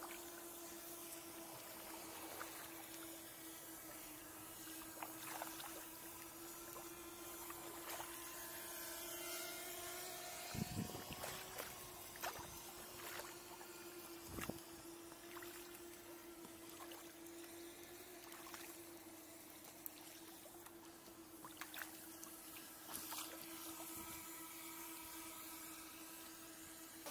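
Steady buzzing hum of a drone's propellers, holding about one pitch with a slight waver. A few sharp knocks from the kayak paddle come through, the clearest about halfway in.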